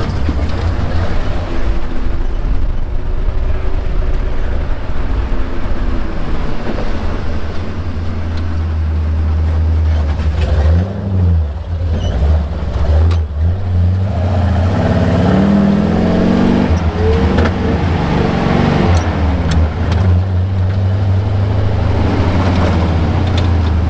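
Off-road recovery truck driving, heard from inside the cab: a steady low engine and drivetrain drone with road noise, the engine note rising and falling a few times with the throttle.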